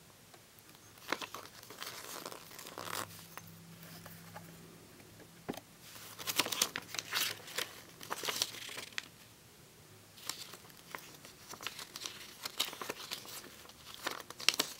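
Pages of a small glossy paper catalog being turned and handled, rustling and crinkling in short bursts every second or two.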